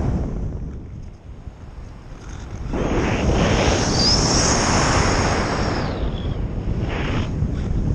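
Airflow rushing over the glider's nose-mounted camera while it is airborne. The rush fades to a low hiss as the nose points at the sky, surges back a little under three seconds in as it dives toward the ground, and a thin whistle rises and falls with the airspeed.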